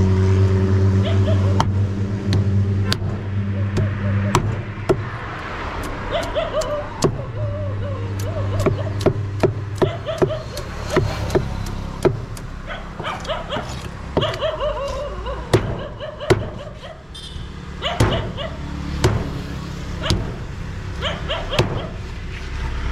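Cleaver chopping through a catla fish: sharp knocks at irregular intervals, roughly one a second, some close together in pairs.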